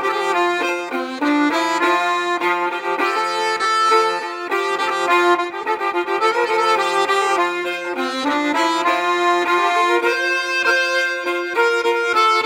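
Danish folk tune played on accordion: a melody over a low held drone note that drops out about three quarters of the way through.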